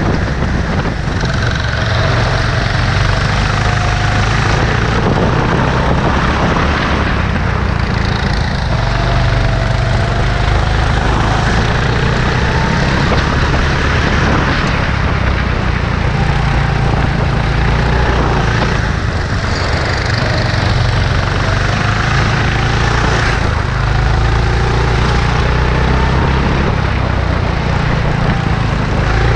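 Kart engine heard onboard at racing speed, its revs climbing again and again as it accelerates out of corners and dropping as it backs off, over a steady rush of noise.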